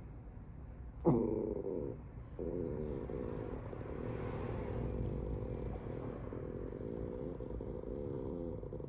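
A frightened chihuahua growling: a long, low, continuous growl that starts suddenly about a second in, breaks off briefly near two seconds, then resumes and holds steady.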